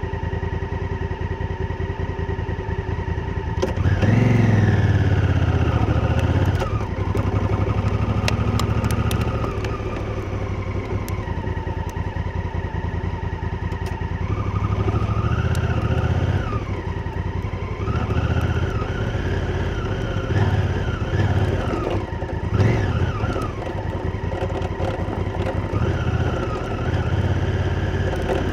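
Honda Africa Twin's parallel-twin engine under way, its pitch rising and falling as the throttle is opened and closed, with a sharp rev about four seconds in. Scattered short clicks are heard over it.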